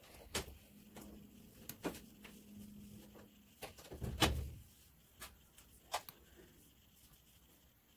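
Scattered small clicks and taps of a pointed metal tool picking seeds out of a hand-held strawberry over a paper towel, with a duller thump a little past four seconds in. A faint low hum runs under the first few seconds.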